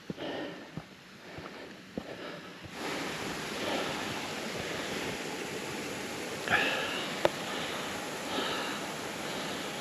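Steady rush of a waterfall on a moorland brook, coming in suddenly about a third of the way in. A hiker's sniffs and breaths sound over it, with a sharp click about three-quarters through.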